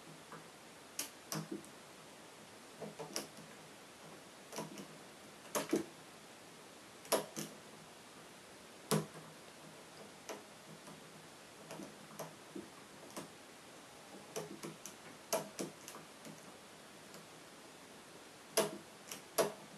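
Euro cylinder lock being single-pin picked with a hook pick and tension wrench: faint, sharp, irregularly spaced clicks of the pick working the pins, a louder cluster near the end. The lock is held in a false set against spool security pins.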